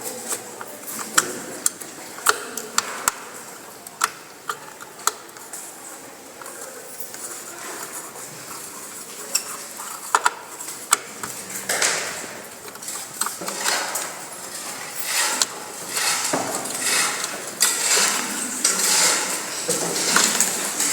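Metal parts of a desktop computer being handled during disassembly: scattered sharp clicks and light metallic clinks, then from about twelve seconds in a busier run of scraping and rattling.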